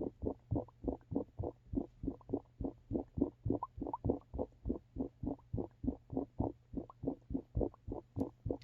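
Rooftop dryer vent gurgling as exhaust air from the running dryer bubbles through standing water in the duct, in a steady rhythm of about four pulses a second, over a muffled low hum of the dryer spinning. The standing water is what sends moisture back into the dryer so it doesn't fully dry.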